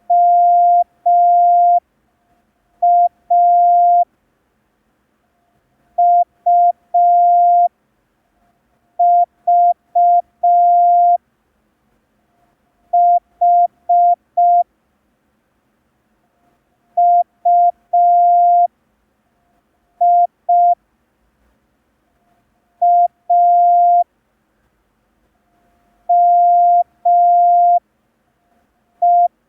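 Morse code practice tone: a single steady beep keyed on and off in dots and dashes, sent slowly one letter at a time with pauses of about two seconds between letters. It is a beginner's practice run using only the ten letters learned so far (E, I, S, H, T, M, O, A, U, V).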